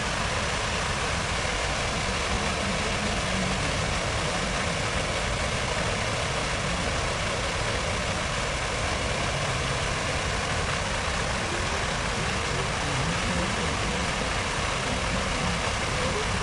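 Steady urban ambience: a continuous even wash of noise over a low rumble of traffic, with no single event standing out.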